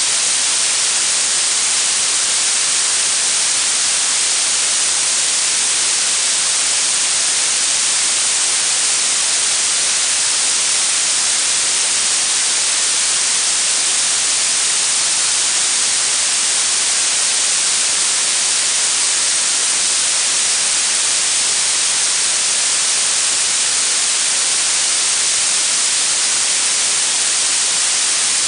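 Steady synthetic blue noise: an even, unbroken hiss weighted toward the high end, thin in the bass.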